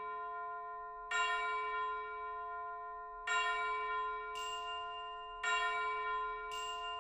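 Background music: a bell-like chime chord struck three times, about every two seconds, each strike ringing on and slowly fading, with two soft hissing swells in the second half.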